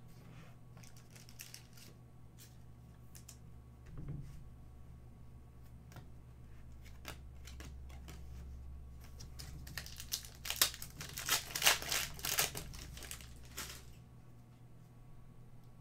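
Trading cards sliding and clicking softly as they are flipped through by hand, then, about ten seconds in, a foil card-pack wrapper crinkling loudly for a few seconds as a pack is torn open.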